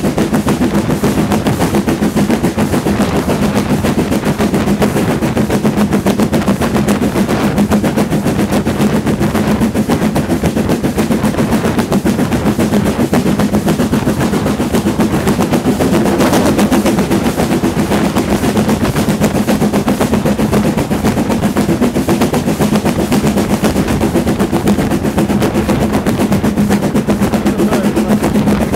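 LMS Black Five two-cylinder 4-6-0 steam locomotive No. 45379 on the move, its exhaust chuffing in fast, even beats over the steady rumble of the train running on the rails.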